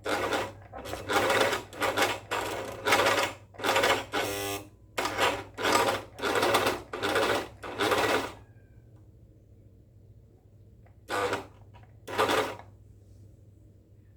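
New overlock (serger) sewing machine running in short bursts as the pedal is pressed and released, about a dozen quick runs, then a pause and two more near the end: a first test stitch after switching it on.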